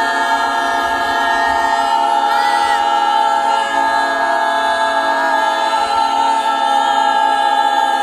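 A group of many voices, men and women together, holding one long, loud "ohhh" on a single breath, like a choir sustaining a chord. It is a lung-endurance contest: each voice holds the vowel until the person runs out of air.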